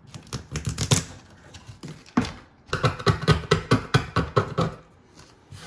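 A hand tool scraping and chipping at old vinyl floor covering: a few strokes at first, then a quick run of about eight scrapes a second lasting a couple of seconds.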